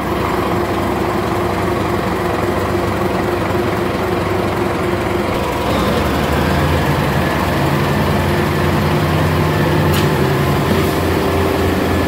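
Engine of a frog concrete pump (small trailer concrete pump) running steadily while pumping concrete through the pipeline, growing a little louder about halfway through.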